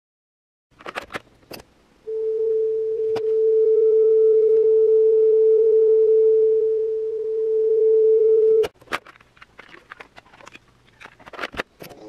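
A steady test tone played back from a cassette through the speaker of a National RX-1750 mono radio-cassette recorder during a tape speed check, its pitch read off a tuner to judge whether the tape runs at the right speed. Clicks of the cassette keys come before it; the tone cuts off suddenly about nine seconds in, and more key clicks follow.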